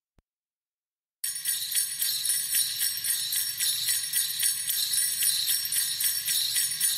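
About a second of silence, then jingle bells shaking in a steady beat, starting a holiday song.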